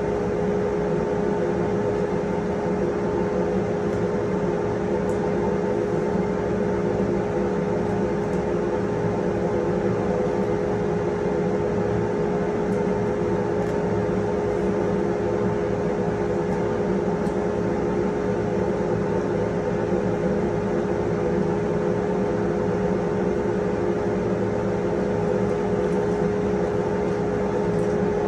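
A woodshop machine motor running steadily: a constant hum with one strong, unwavering tone, and a few faint ticks on top.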